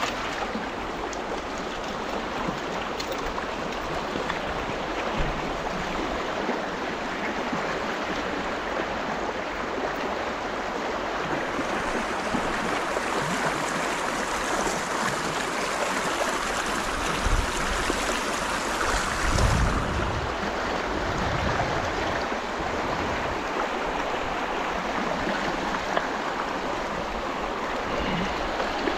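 Shallow, fast river rushing and splashing over stones in a riffle, a steady close water noise that brightens for a stretch in the middle. A few low thumps come about two-thirds of the way through.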